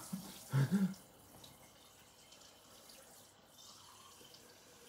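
A woman's two short vocal sounds in the first second, as she braces to drink a smoothie. These are followed by a faint steady hiss with no distinct events.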